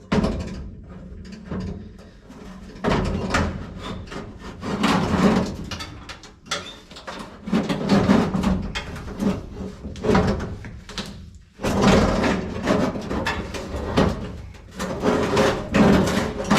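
Irregular scraping, sliding and knocking of metal and glass as a broken door window in its frame is worked loose inside a 1955 Chevrolet 210 door.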